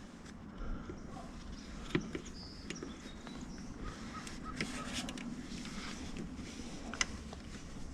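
Faint creaks and small clicks of interior plastic trim being pried at with a metal pry tool, with two sharper clicks, about two seconds in and near the end.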